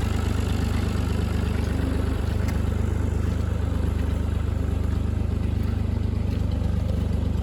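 Farm tractor engine running at a steady speed, a low, even drone.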